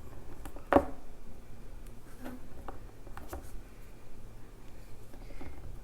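Small scattered clicks and taps of hands handling tiny letter stickers and a small plastic pendant. The loudest is a single sharp tap about three quarters of a second in; a few lighter ticks follow.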